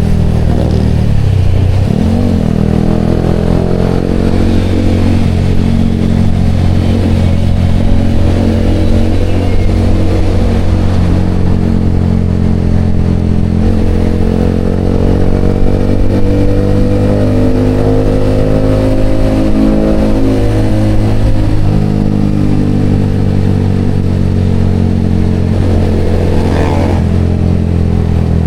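Yamaha XSR motorcycle engine running through a Vmax aftermarket exhaust canister, steady and loud, its pitch drifting slowly up and down. There is a brief dip and rise in engine speed about two seconds in and a quick rise near the end.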